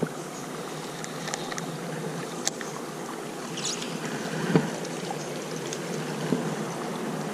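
Steady rush of flowing water, with a few light clicks and rustles, one about two and a half seconds in and a stronger one a little after four and a half seconds.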